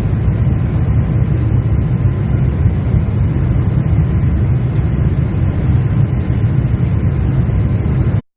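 Steady low rumble of cabin noise inside a Boeing 747-8 airliner with its engines running, cutting off abruptly near the end.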